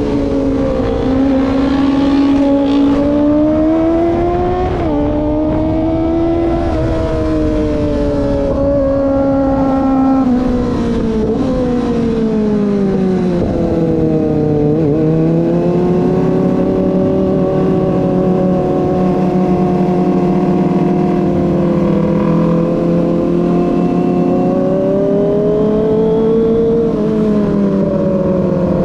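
Kawasaki ZX-25R's 250 cc inline-four engine under way, its pitch rising and falling with throttle and gear changes. About halfway through it drops away and picks back up, then holds fairly steady.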